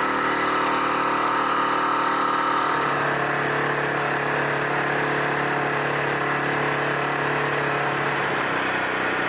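Outboard motor of a small inflatable RIB running steadily under way, its note changing about a third of the way in and then holding steady.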